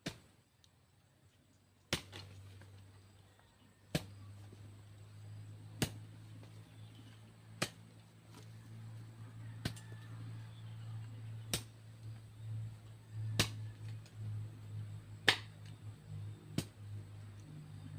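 A hoe striking into soil, one sharp chop about every two seconds, over a low steady hum.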